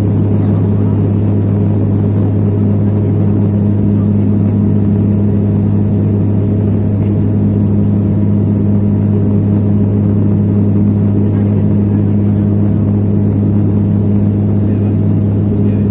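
Steady cabin noise of an airliner climbing after takeoff: a constant engine drone with a strong low hum and a second hum above it, unchanging in level.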